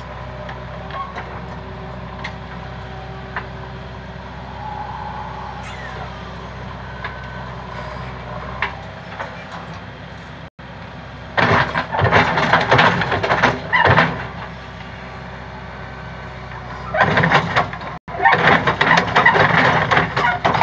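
JCB backhoe loader's diesel engine running steadily, with a few light clicks. Past the middle, two stretches of loud rough crackling noise cover it.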